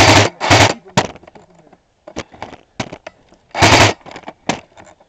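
Close crunching and cracking of brush and twigs, in loud bursts about twice a second at first, then scattered snaps, with one more loud crunch near the end.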